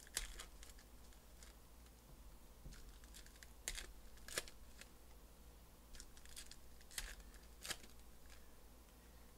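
Foil wrappers of Donruss Elite football card packs being torn open and crinkled by hand: faint, with a few short sharp rips and crackles spread through, along with light rustling of cards.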